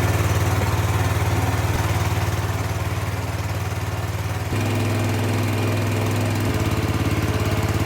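Drain jetter's small engine running steadily, its note shifting a little over halfway through and again near the end.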